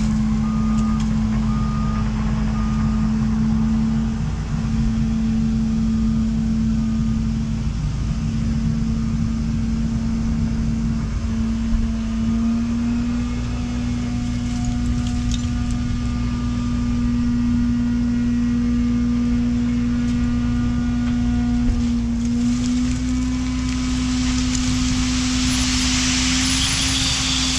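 Diesel engine of a semi truck hauling an end dump trailer, running steadily as it gets set to unload. Its pitch steps up a little about halfway through and again near the end. A backup alarm beeps in short repeated tones at the start, and a hiss builds up near the end.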